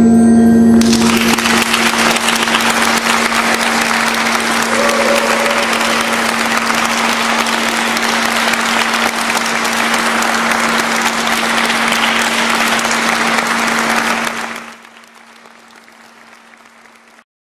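Audience applauding, starting about a second in and dying away about three seconds before the end. Beneath it, the low ring of the gong-bath instruments sustains as one steady tone.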